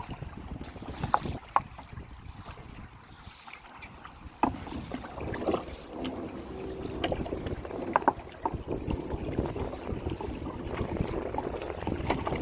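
Kayak under way on open water: water sloshing and splashing against the hull, with a handful of short, sharp knocks and clicks.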